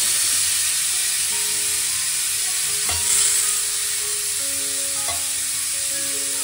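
Dry chana dal (split Bengal gram) poured from a steel tumbler into a steel mixing bowl, a steady hiss of many small grains striking metal, with soft background music.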